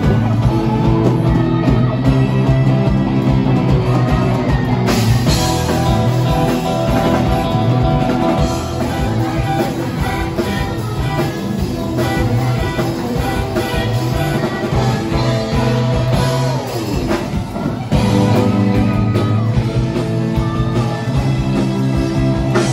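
Live band playing loud, amplified rock-style dance music: electric guitars, a drum kit and keyboard, with singing.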